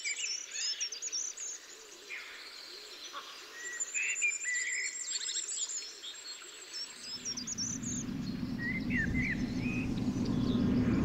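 Small birds chirping and calling, with a thin high trill running through it in stretches. About seven seconds in, a low rumble starts and swells.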